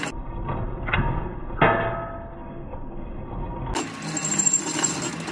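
Metal lathe running while a cutting tool turns a small part, with a few sharp metallic knocks that ring, the loudest about a second and a half in. For the first few seconds the sound is muffled, then it opens out into steady running with a fast rhythmic chatter.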